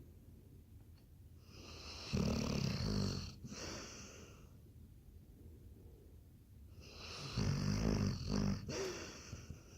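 A Labrador retriever snoring in its sleep: two long, fluttering snores about five seconds apart, each with a breathy hiss.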